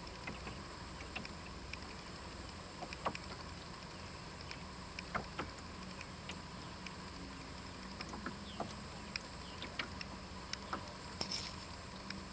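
Water lapping and trickling against a small sailboat's hull under way on calm water, with many small scattered clicks and splashes over a low steady hum.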